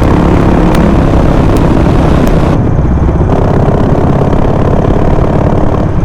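Harley-Davidson Sportster 48's air-cooled V-twin engine running steadily under way, loud, mixed with wind rush over the microphone; the top end dulls briefly about halfway through.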